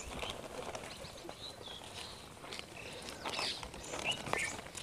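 Small birds chirping now and then, with a few soft rustles and clicks of leaves and a plastic packet being handled.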